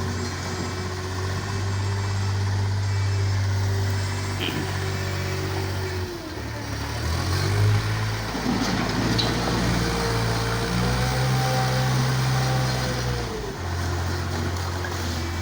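A heavy engine running. Its pitch drops about six seconds in, then rises and holds higher before falling back to a steady run near the end.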